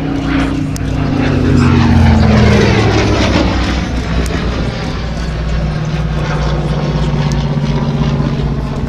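Yak-3UTI fighter's piston engine on a low pass: the engine note falls in pitch as it goes by, loudest about two seconds in, then settles into a steady drone as it flies away.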